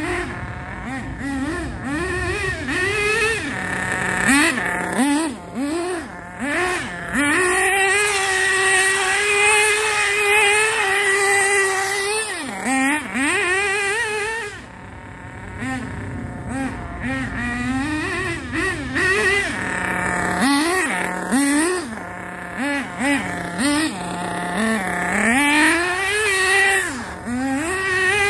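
Thunder Tiger EB4 S3 nitro buggy's .28 Pro two-stroke glow engine running on 16% nitro, revving up and down in quick throttle blips as the car is driven. The engine holds a long high-pitched run about eight seconds in and another near the end.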